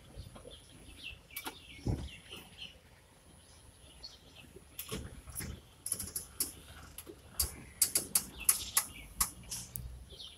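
Birds chirping, with a run of sharp clicks that grow louder and quicker in the second half, about three a second near the end.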